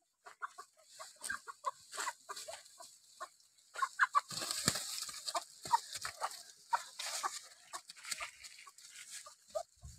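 A chicken squawking and clucking in alarm while being chased, in many short, separate calls. Leaves and brush rustle loudly through the middle and latter part.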